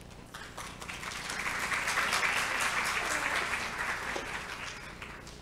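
Audience applauding, building up in the first second or two and fading away near the end.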